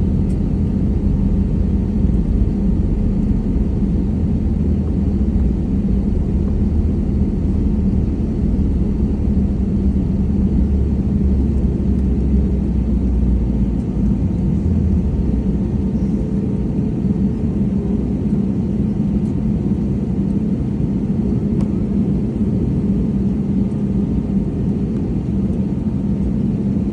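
Airbus A320neo's jet engines and rushing air: a steady rumble with a constant low hum. The deepest part of the rumble eases about halfway through.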